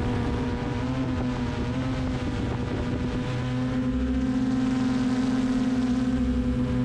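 Multirotor drone's motors and propellers humming steadily, the pitch wobbling slightly about a second in and the hum growing stronger from about three and a half seconds in as the drone changes its flight.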